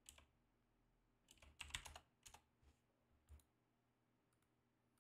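Faint computer keyboard keystrokes and mouse clicks: a few scattered taps, with a short cluster of them between about one and two seconds in.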